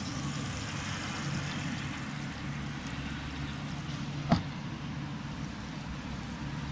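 Steady fizzing of gas bubbles rising from a stainless-steel spring HHO electrolysis cell running in tap water, over a low rumble. A single sharp click comes about four seconds in.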